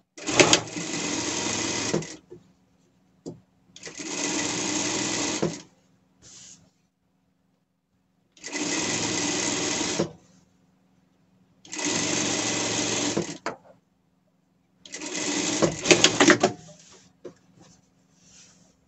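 Industrial straight-stitch sewing machine stitching in five short runs of about one and a half to two seconds each, stopping between runs, with a faint steady hum underneath.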